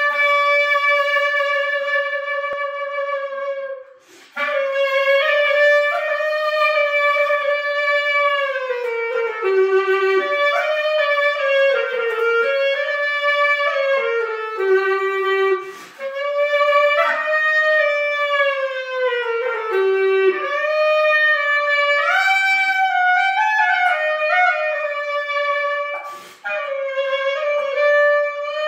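Solo clarinet playing an unaccompanied melody of long held notes with downward slides between them, breaking off briefly three times for breath.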